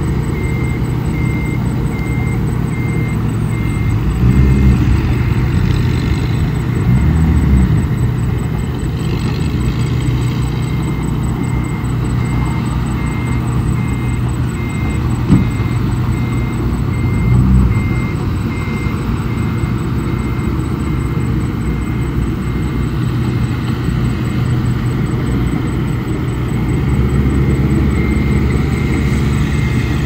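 Komatsu bulldozer's diesel engine running steadily, revving up briefly about three times as it pushes sand, with one sharp knock midway. A high beep repeats at even spacing throughout.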